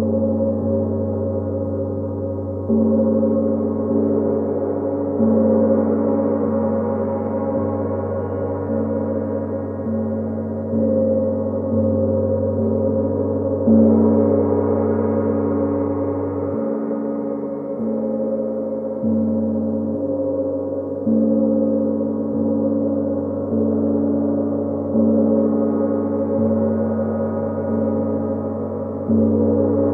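Gong struck softly every two to four seconds, each stroke ringing on under the next as a continuous deep, shimmering tone, the strongest stroke about halfway through.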